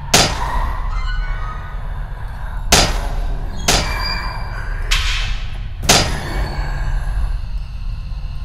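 A run of five sharp crashing hits, each with a short ringing tail, over a steady low drone of dramatic music.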